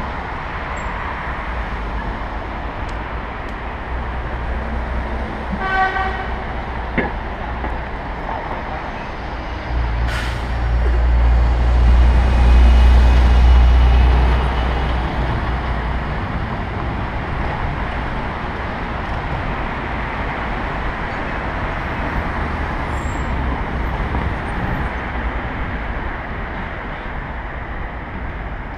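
City street traffic heard from a moving bicycle: steady road noise, a short vehicle horn beep about six seconds in, and a heavy low rumble that swells from about ten seconds and fades by sixteen as a city bus passes close alongside.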